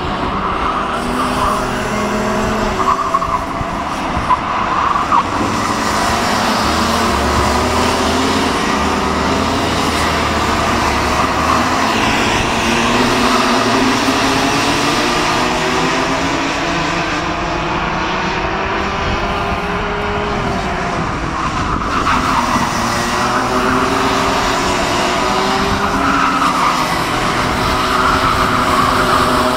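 Several Rotax 125 Mini Max two-stroke kart engines racing together, their overlapping pitches rising and falling as the karts accelerate and lift off.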